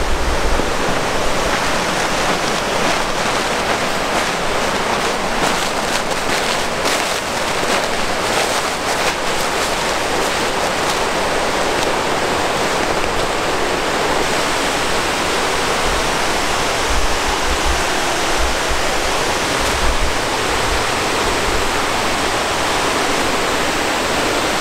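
Steady rushing of water from the waterfalls and fast-flowing outflow below a reservoir, an even hiss with no breaks.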